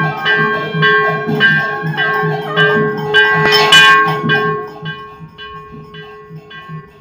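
Temple bells ringing in a fast, steady beat of about two to three strokes a second, with a low drum-like thump on each stroke, as rung for the arati lamp offering to the deity. The ringing grows fainter after about four and a half seconds.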